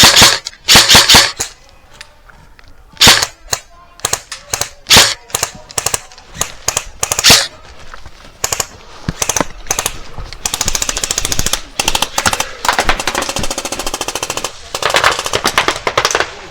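Airsoft gun firing: scattered single shots in the first half, then several long full-auto bursts from about ten seconds in.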